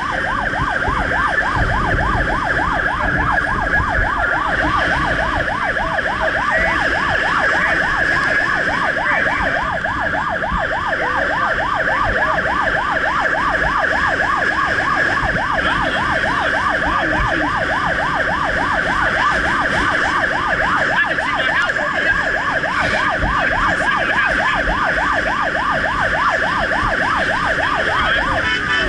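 Rural Fire Service fire truck's electronic siren on a fast yelp, heard from inside the cab over the truck's engine and road noise. The siren pattern changes near the end.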